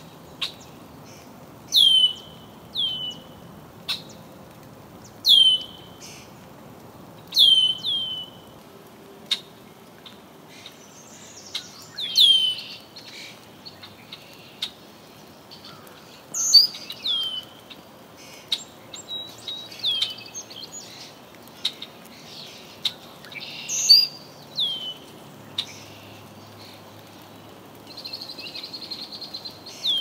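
Birds calling: a run of sharp, high notes that sweep steeply down in pitch and end in a short, lower tail, repeated every second or two, with a buzzy trill near the end.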